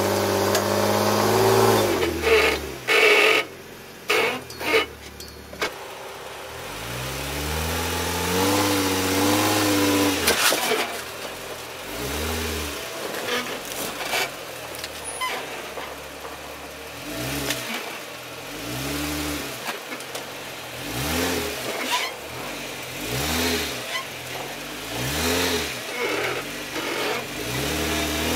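Jeep Wrangler JK engine revving in repeated blips, the revs rising and falling every second or two, with a few loud knocks about two to five seconds in.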